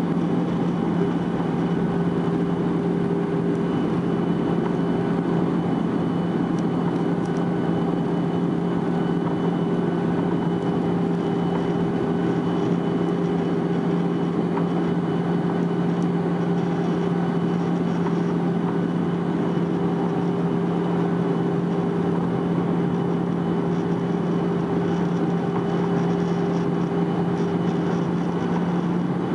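Cabin noise inside a Boeing 737-800 descending through cloud: a steady rush of airflow with the even drone of its CFM56-7B turbofan engines, including two steady low hum tones.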